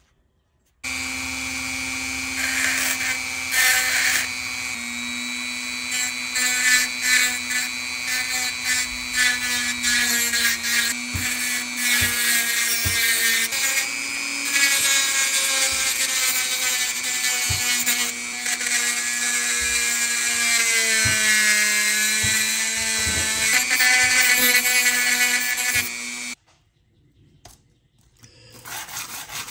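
Electric power tool motor running at a steady pitch while abrading a rusted metal part, with scraping and ticking contact noise over the motor tone. The pitch sags for a few seconds as the tool is loaded, then recovers. The sound starts suddenly about a second in and stops suddenly near the end.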